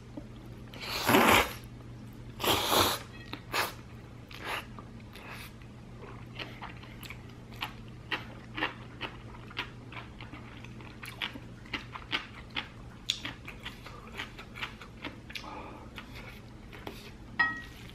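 Slurping up a mouthful of chewy spicy noodles, twice in the first three seconds, then close-up chewing with many small wet mouth clicks. A short clink near the end.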